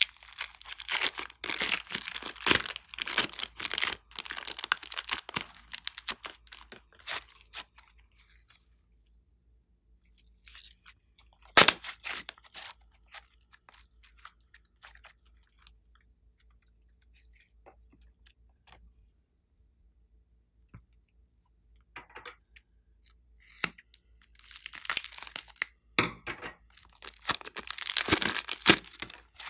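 Slime being squeezed, stretched and pulled apart by hand: dense sticky crackling and popping through the first several seconds and again near the end, with sparser clicks and one sharp snap in between.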